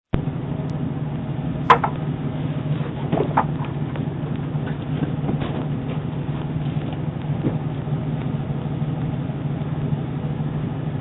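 Steady low hum and hiss picked up by a doorbell camera's microphone, with a sharp click just under two seconds in and a few fainter ticks.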